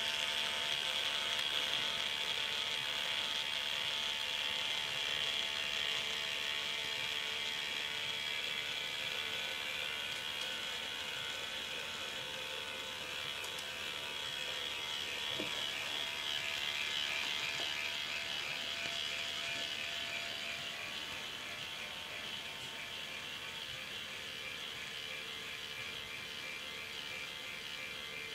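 K'NEX ball-machine lift running: its motor whirs steadily while the plastic gear train turns and meshes, giving a fast ratcheting texture.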